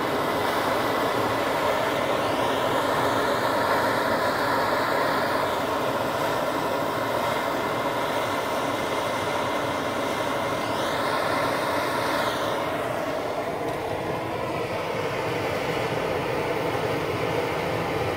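MSR XGK EX pressurised multi-fuel stove burning at a steady full flame under a kettle, with a BernieDawg noise-damper cap fitted over the burner: an even, unbroken rushing noise from the burner jet.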